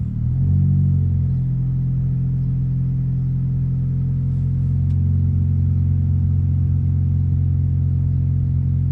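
Car engine idling, a steady low hum heard inside the cabin.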